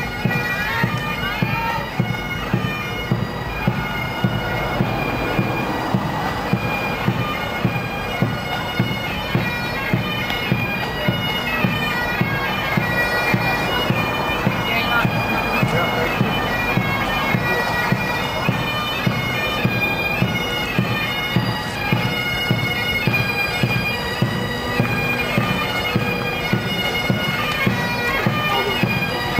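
Military pipe band of bagpipes and drums playing a march while marching: the steady drone of the pipes under the chanters' melody, with a regular beat of about one stroke a second.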